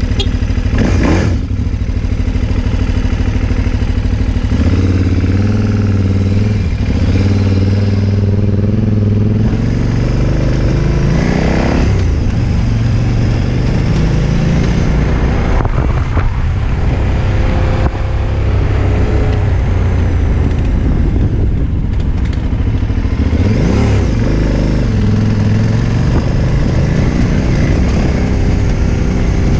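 KTM 990 Adventure's V-twin engine pulling the bike along a rough dirt track, its pitch rising and falling with the throttle and climbing sharply twice, about halfway through and again later on.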